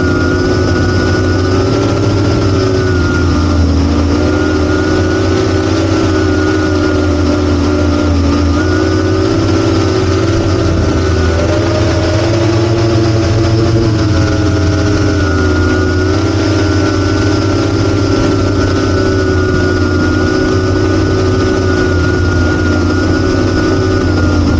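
Motors and propellers of an 8-inch FPV quadcopter with T-Motor F90 motors whirring steadily. The pitch dips and rises as the throttle changes, with a lower pitch around 3–4 and 8 seconds in and a higher pitch around 11–15 seconds in.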